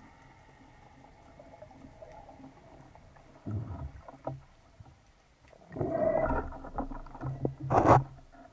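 Water sloshing and bubbling around a speargun-mounted camera moving at and just under the sea surface, faint at first, then in irregular gushes, with the loudest splash near the end.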